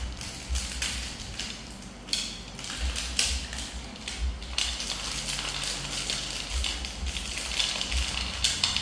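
Monkeys eating green peas from a ceramic plate: a run of small crunches and clicks as peas are chewed and picked off the plate, with occasional dull thuds.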